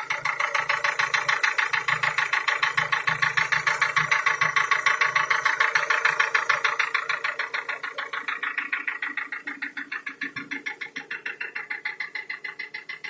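Nissan QG18DE 1.8-litre four-cylinder petrol engine running at idle while warming up, with a rapid, regular knock in time with the engine. The owner places the knock near the fourth cylinder. The sound grows fainter about seven seconds in.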